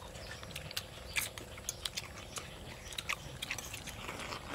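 Close-up eating sounds: a person chewing and biting a mouthful of rice with water spinach, with a scatter of small crisp clicks and crunches.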